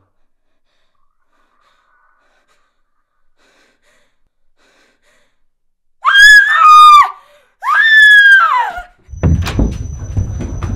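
A woman screams twice, long and high, the second scream falling in pitch at its end, after about six seconds of near quiet. Straight after, a low rumble with scattered knocks sets in under a thin, steady high tone.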